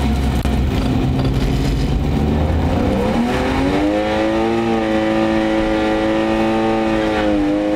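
BMW 525i E34's 2.5-litre M50 inline-six heard from inside the cabin, accelerating hard: after a low rumble its pitch climbs about three seconds in, then holds high and steady, dipping briefly near the end.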